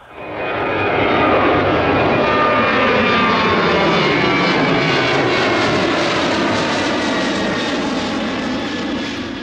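The twin jet engines of a Boeing 777 freighter (GE90s) running at high power on the runway: a loud, steady roar with several whining tones slowly falling in pitch.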